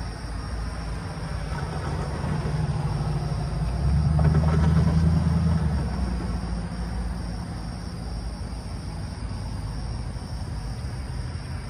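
Engine of a passing vehicle running with a low hum, swelling to its loudest about four to six seconds in and then fading.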